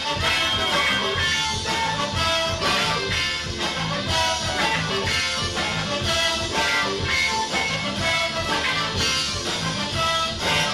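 A band playing music with a steady beat and instrument melody lines.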